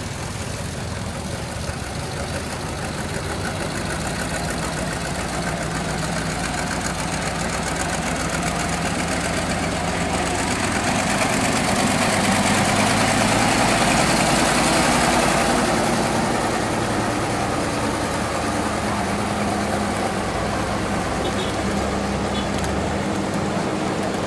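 Heavy diesel truck engine running at low speed as the truck pulls slowly past. The sound grows to its loudest about halfway through as the truck draws level, then eases a little as it moves away.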